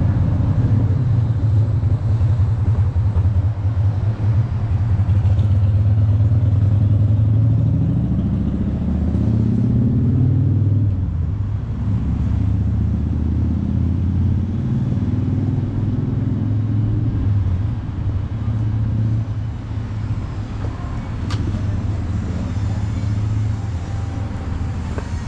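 Street traffic dominated by a nearby motor vehicle's engine running with a low rumble, its pitch rising twice as it accelerates, the first time about a third of the way in and again shortly after.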